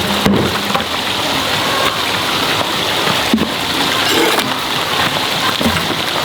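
Steady splashing, rushing water.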